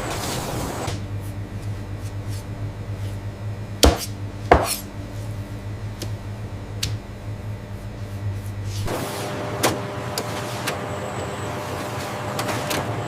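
Steady low machine hum with a few sharp knocks and clatters, two loud ones about half a second apart near the middle.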